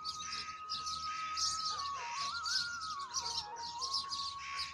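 Birds chirping rapidly and continually over background music, a single sustained melody line that steps up and down in pitch.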